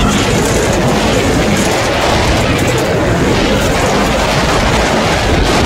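Off-road vehicle driving over rough desert gravel: a loud, steady rumble of the engine and tyres on the stony ground, mixed with wind buffeting the microphone.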